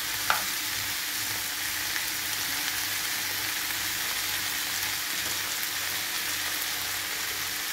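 Chopped zucchini, onion and red pepper sizzling steadily in olive oil in a nonstick frying pan, as the zucchini gives off its own juice. A spatula stirs through the vegetables, with one light knock on the pan just after the start.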